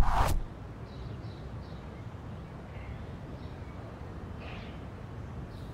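A short loud hit right at the start, then steady outdoor street ambience with faint bird chirps now and then.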